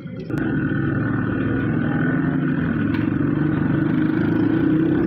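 Small motorcycle engine of a motorcycle-and-cart conversion, coming in suddenly with a click about a third of a second in and then running steadily at idle.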